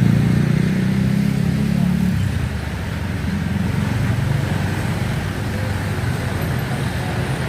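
A motor vehicle's engine running close by, loudest at first and dropping back about two seconds in, over a steady rumble of road traffic.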